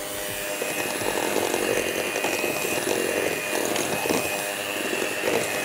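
Electric hand mixer running steadily, its beaters churning thick batter in a glass bowl, with a constant high whine over the churning.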